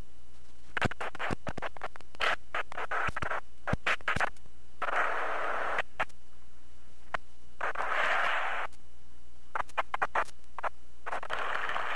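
Noisy soundtrack of an old VHS camcorder tape: a steady low hum under scattered sharp clicks and crackles, with several second-long bursts of hiss.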